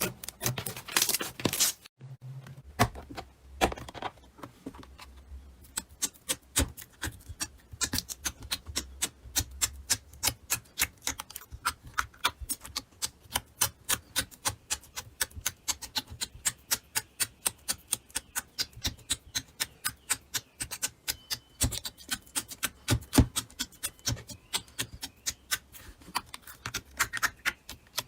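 Slime being squeezed and pressed by hand, giving a long run of small sharp pops and clicks, about three to four a second.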